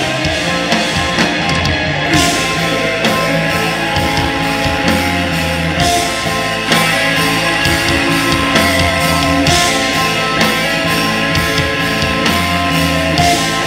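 Live metal band playing with heavy distorted electric guitars, bass and drum kit, with a cymbal crash about every four seconds.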